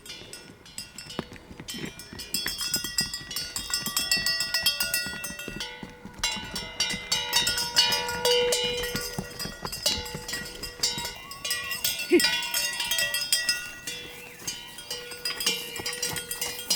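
Bells on cattle clanking as the cows move, with many irregular strikes and a ringing tone that lingers between them.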